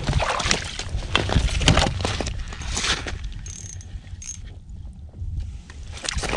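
A spinning reel and line being worked with irregular clicking and rustling while a hooked white bass is reeled in, over a steady rumble of wind on the microphone.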